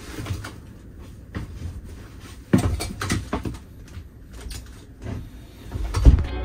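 Handling noise as a plastic-wrapped rolled mattress is carried into a small wood-lined camper cabin: the plastic rustles, with footsteps and knocks on the wooden floor. A heavy, deep thump comes about six seconds in.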